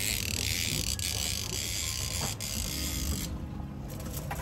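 Fishing reel being wound in to land a hooked fish, a steady high whir that stops abruptly about three seconds in. A low hum runs underneath.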